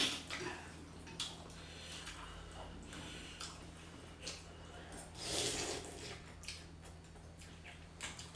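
People slurping thukpa noodle soup from spoons in short wet bursts, with the loudest slurp about five to six seconds in. Light clicks of spoons and chopsticks against ceramic bowls, over a low steady hum.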